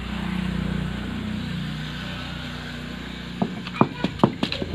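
Ammikkal grinding stone: the stone roller rolls over the masala on the stone slab, then knocks sharply against the slab several times near the end. Under the grinding is a low, steady, engine-like hum that swells and then fades.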